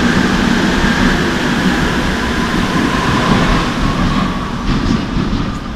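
Madrid Metro Serie 2000 train pulling out of the station into the tunnel: the steady rumble of wheels on rail with a whine, fading toward the end, with a few clacks near the end.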